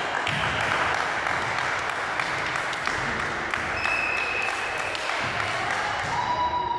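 Echoing sports-hall noise during a volleyball game: a steady wash of crowd and player noise with many sharp claps or smacks through it. A brief high squeak comes about four seconds in, and a lower steady tone starts near the end.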